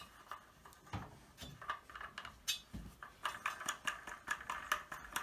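Irregular small clicks and rattles of faucet mounting wing nuts being turned by hand onto the faucet shanks under a sink, snugged only lightly. The clatter gets busier about three seconds in.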